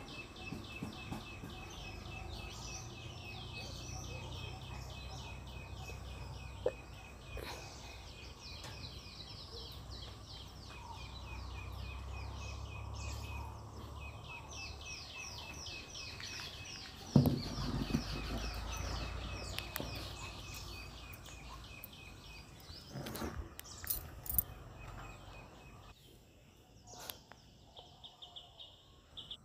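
Birds calling outdoors: long runs of fast, repeated high chirps over a steady high trill, with a low rumble beneath. A single sharp thump about 17 seconds in and a few light knocks a little later.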